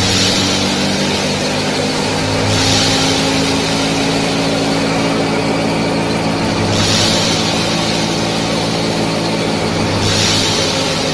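A small motor running steadily, a constant mechanical hum with a hiss that swells every three to four seconds, as of a miniature thresher machine at work.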